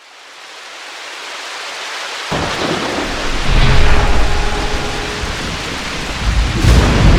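Steady rain-like hiss fading in from silence, with a heavy, thunder-like low rumble that sets in suddenly about two seconds in and swells twice.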